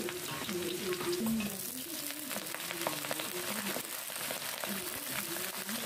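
Sliced shallots and garlic frying in hot oil in an aluminium wok, a steady sizzle with small crackles. Partway through, chopped banana blossom and chilli shoots are tipped into the pan.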